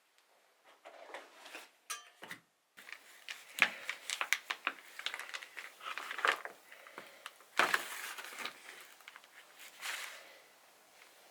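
Irregular rustling and crinkling handling noise with sharp clicks and knocks, loudest twice, a few seconds in and again past the middle.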